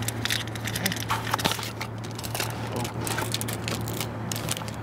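Plastic snack wrapper crinkling and rustling as it is handled, in quick irregular crackles, over a steady low hum.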